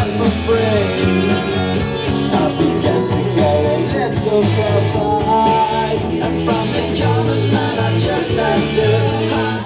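Rock song with singing and guitar over a bass line, cutting off suddenly at the end.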